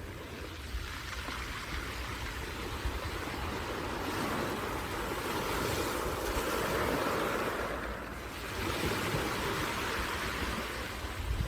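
Sea waves breaking and washing on the shore as a steady rushing surf, swelling louder about halfway through, easing briefly, then building again.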